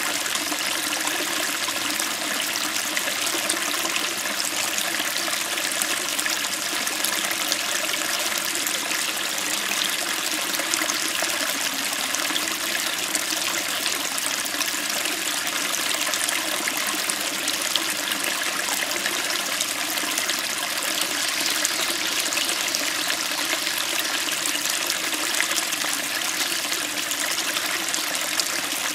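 Small stream flowing over rocks: a steady, crisp babbling and splashing of water.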